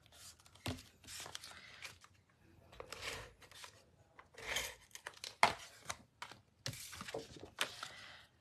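Sheets of cardstock being picked up, slid and laid down on a glass craft mat: a series of irregular paper rustles and scrapes with a few light taps, the sharpest about five seconds in.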